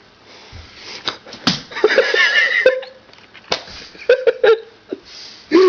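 Several sharp knocks and smacks of thrown knives and screwdrivers striking a pumpkin target, mixed with short bursts of voice or laughter.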